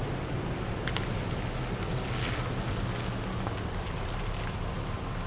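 Chevrolet pickup with a camper shell rolling slowly on a wet paved road: a low steady engine rumble under the hiss of tyres on the wet surface, with a few small ticks.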